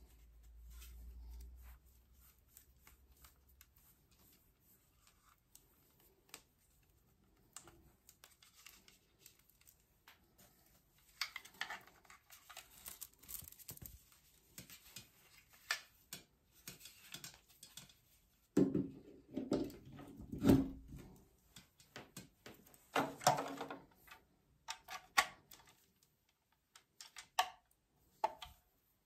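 Handling noises from a plastic IPL hair-removal device and its power adapter and cord: scattered clicks, taps and rustles as they are picked up, unwound and plugged into a wall outlet. The noises come in busier bursts around the middle.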